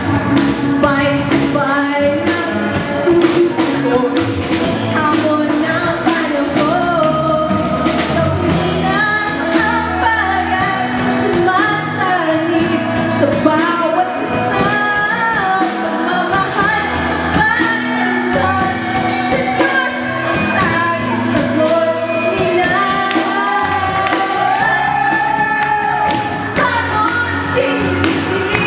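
A young woman singing a pop song into a microphone, amplified, over a musical accompaniment with a steady drum beat.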